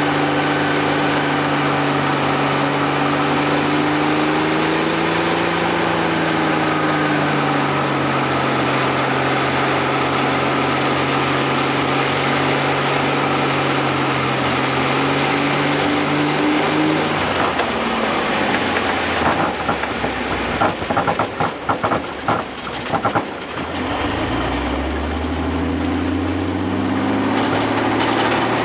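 A small bush plane's piston engine and propeller droning steadily from inside the cockpit on approach. About two-thirds of the way through the power comes off and the engine note drops, then a few seconds of irregular rattling and thumping as the wheels touch down and roll over rough ground; near the end the engine note climbs again.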